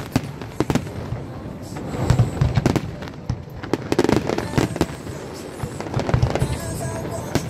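Fireworks display: aerial shells bursting in a dense, irregular run of bangs and crackles that overlap one another.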